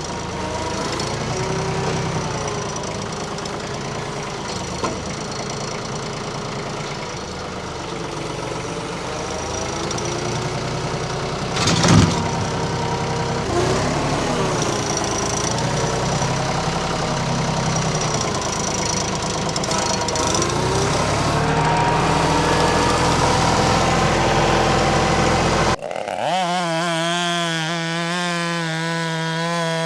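Compact tractor's diesel engine running, its pitch rising and falling with load, with one sharp knock about twelve seconds in. Near the end a chainsaw takes over, running with a wavering pitch.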